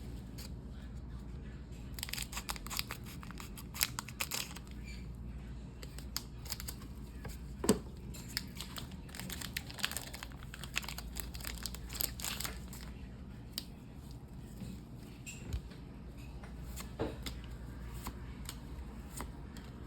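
Foil wrapper of a Lorcana trading-card booster pack crinkling and tearing as it is opened by hand, in irregular crackles with a sharper snap about eight seconds in.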